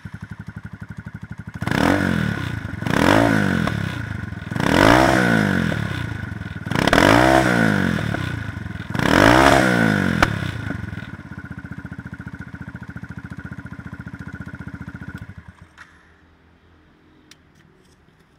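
Sachs Madass 125's single-cylinder four-stroke engine, fitted with a custom-made exhaust, idling, then revved in five quick throttle blips that climb and fall away, with a sharp exhaust pop as the last one drops. It idles on for a few seconds and then cuts out.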